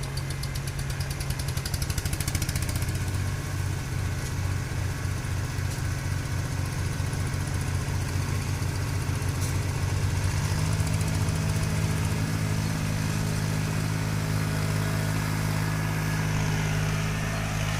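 Tractor engine running steadily under load as it climbs a slope; its pitch steps up about ten seconds in.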